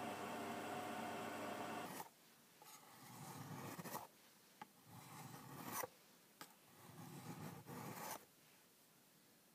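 A steady motor hum from a bench disc sander lasts until about two seconds in, then cuts off. After that, a small forged axe's edge is rubbed along a sharpening stone in three long strokes. Each stroke is a gritty rasp of steel on stone that grows louder, with sharp clicks of the blade against the stone between strokes.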